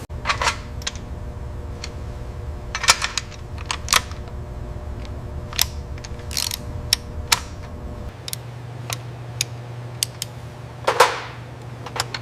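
A string of irregular sharp clicks and knocks, hand-tool work on metal engine parts, over a steady low hum; a low rumble under it stops about eight seconds in.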